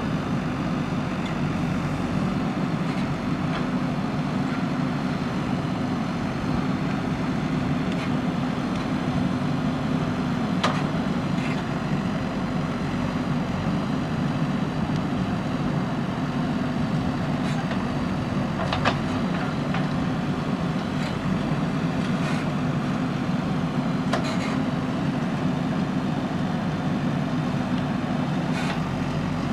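JCB backhoe loader's diesel engine running steadily under working load while digging soil, with a few brief sharp knocks scattered through.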